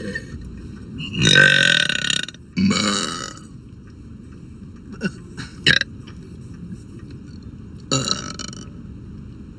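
A girl burping loudly on purpose: a long burp about a second in, a second one straight after, two short sounds in the middle and another burp near the end.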